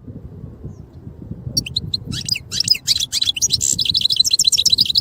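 European goldfinch singing: a fast twittering run of short, high notes that starts about a second and a half in and grows denser, over a low background rumble.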